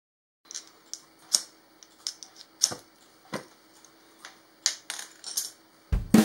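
Light, irregular clicks and taps of small metal items, titanium stove parts and a brass fire starter, being handled and set down on a marble tabletop: about a dozen sharp ticks. Drum-kit music starts just before the end.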